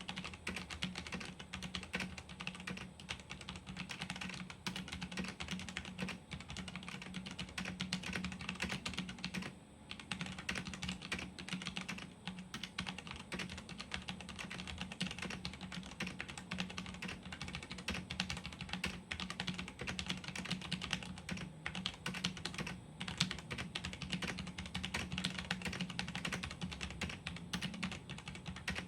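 Continuous typing on a Gigaware K550 mechanical keyboard with stock Outemu brown switches, unfoamed, with stock stabilizers: a dense run of key clicks with brief pauses about ten and twelve seconds in. A low steady hum lies underneath.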